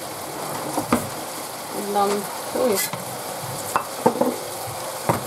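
Minced beef sizzling in a frying pan, with a utensil stirring it and clicking against the pan now and then.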